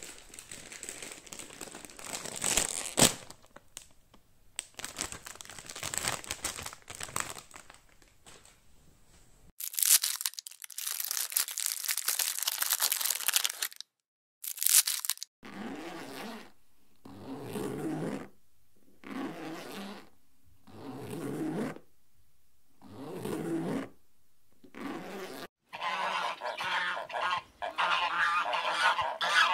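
A crinkly bag being rustled and torn open, in several spells over the first fifteen seconds. Then a run of about six short sounds, each roughly a second long and evenly spaced, from an unclear source. Near the end, a goose honking.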